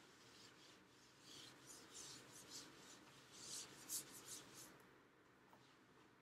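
A whiteboard eraser wiped across a whiteboard in repeated short back-and-forth strokes, a faint scrubbing hiss that stops a little before the end.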